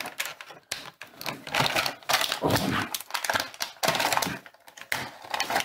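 Stiff clear plastic blister packaging crackling and clicking in irregular bursts as hands bend and pull at it to free an action figure held fast inside.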